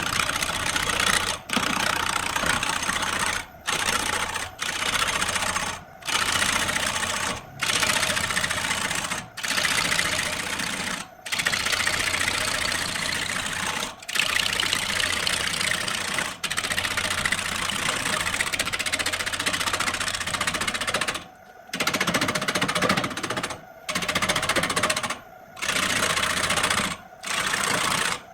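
Wood lathe running while a cutting tool shaves the spinning wood, a dense rasping noise over a low motor hum that breaks off every one to two seconds in short gaps.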